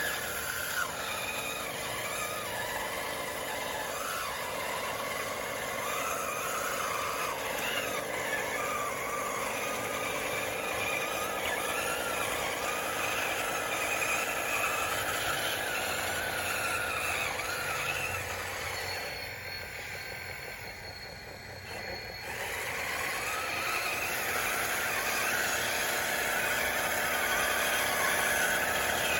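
Radio-controlled bulldozer's drive motors and gears whining as it works, the pitch wavering up and down with the load. It eases off for a couple of seconds about two-thirds of the way through, then picks up again.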